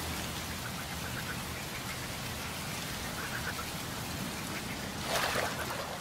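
Steady rain falling on open water, an even hiss of drops, briefly louder about five seconds in.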